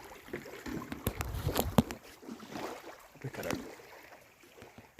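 Scattered knocks and clatter of handling noise, with a sharp knock a little under two seconds in.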